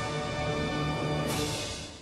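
Background music with held notes, starting to fade out near the end.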